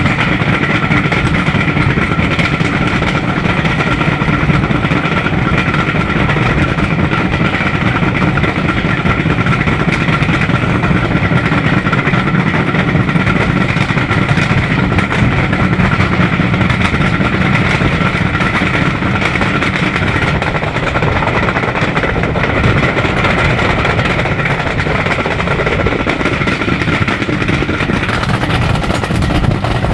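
Passenger train hauled by a diesel locomotive running at speed, heard from an open coach window: a steady drone of engine, wheels on rail and rushing air that barely changes.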